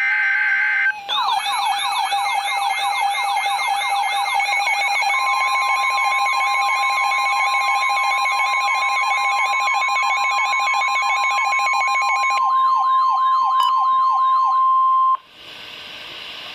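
Weather radio alert opening. The buzzing digital data tones of the alert header end about a second in, and several sirens then wail and yelp together. From about five seconds in, the steady single-pitch weather radio alert tone sounds over them, and everything cuts off suddenly near the end, leaving faint radio hiss.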